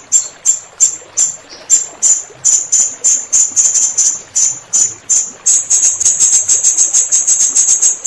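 Blue-crowned hanging parrot (serindit) calling: short, sharp, high-pitched chirps about three a second, quickening into a rapid run about five and a half seconds in, over a faint bed of running water.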